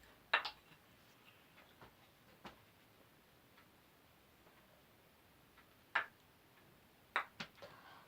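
Wooden kendama clacking: a few separate sharp clicks of the ball knocking against the cups and handle, with a quick run of three near the end.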